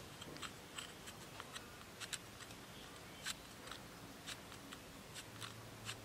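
Irregular small clicks and scrapes of nylon trimmer line being threaded through the holes of a plastic brush-cutter line head, with fingers handling the plastic disc.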